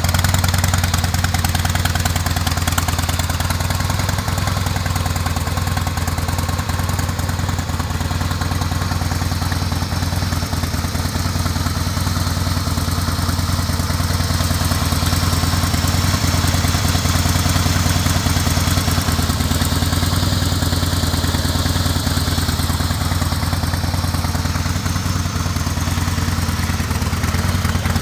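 2005 Harley-Davidson Softail's Twin Cam 88B V-twin engine idling steadily.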